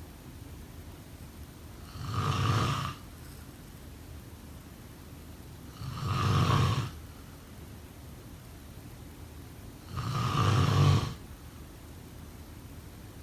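A person snoring in slow, regular breaths: three snores about four seconds apart, each lasting about a second, with a faint steady hiss between them.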